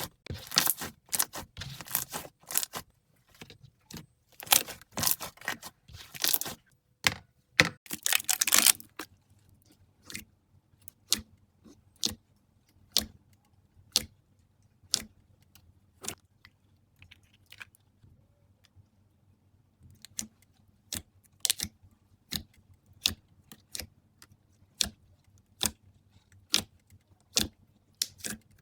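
Slime being pressed and squeezed by hand, making dense crackling clicks for the first nine seconds or so, then single sharp clicks about once a second.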